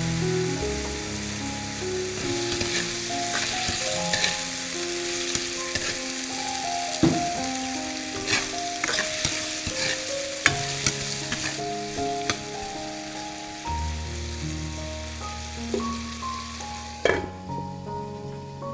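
Hot oil sizzling in a frying pan as okra pods go in among fried garlic and dried chillies, with a few sharp clicks and knocks against the pan. Near the end the sizzle suddenly drops away as the pan is covered with its lid.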